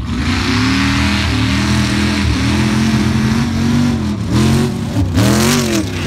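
Mud-drag racer's engine launching at full throttle, loud from the first instant, with a heavy rushing noise over it. Its revs hold and waver, then dip and climb sharply several times near the end as it churns through the mud pit.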